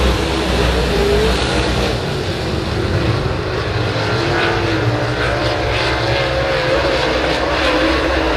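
Super late model dirt-track race cars' V8 engines running hard around the oval, a loud continuous engine noise whose pitch wavers up and down as the cars go through the turns and past.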